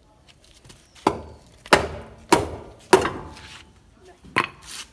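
Hammer blows on a car's wheel to knock a stuck alloy wheel loose from its hub: four sharp strikes about half a second apart, then one more after a pause.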